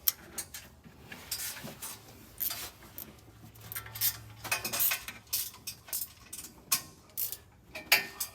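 Irregular metallic clicks and clinks of hand tools on the exhaust header bolts as they are worked loose and snugged.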